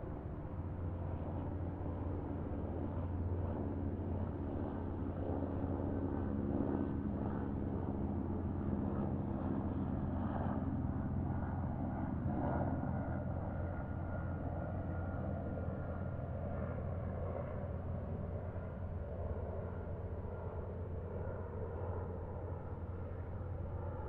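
Distant highway traffic: a steady low rumble of vehicles, swelling slightly in the middle.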